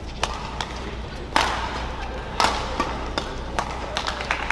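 Badminton rackets striking the shuttlecock during a rally: two loud hits about a second apart near the middle, with lighter taps and the patter of court shoes on the mat around them.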